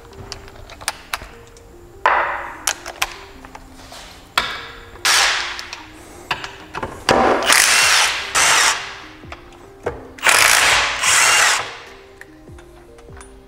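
Cordless power driver spinning out the 12 mm case bolts of a Nissan CD009 transmission in several short runs, the loudest in the second half. Background music plays faintly underneath.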